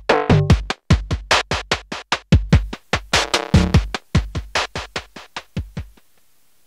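Electronic intro music: a fast drum-machine beat with short synth chords, cutting off about six seconds in.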